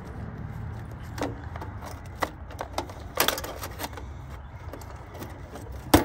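Small metallic clicks and scrapes of a screwdriver working the terminal screws and wire connectors on an AC condenser's contactor as the high-voltage wires are undone, with a sharper click near the end. A steady low rumble sits underneath.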